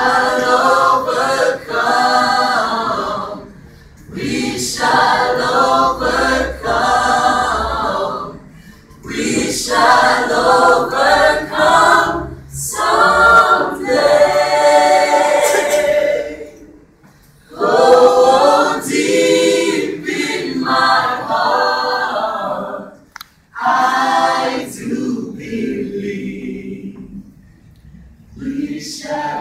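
Choir singing a cappella, in sung phrases with short breaks between them.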